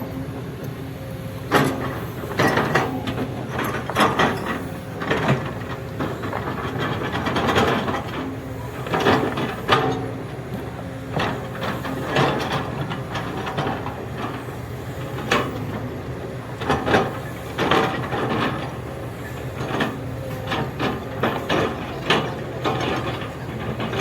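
Excavator's diesel engine running steadily while it levels soil, with frequent irregular metallic clanks and knocks from the machine working.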